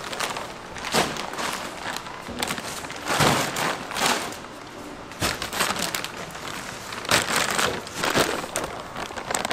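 Large clear plastic bags of roasted peanuts crinkling and rustling in repeated bursts as they are handled.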